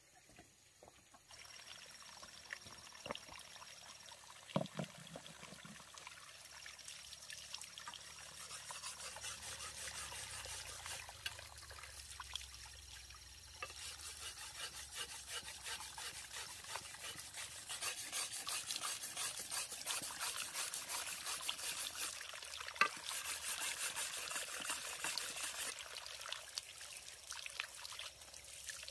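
Water trickling and pouring, getting louder about halfway through, with a few light knocks in the first few seconds and one sharp click near the end.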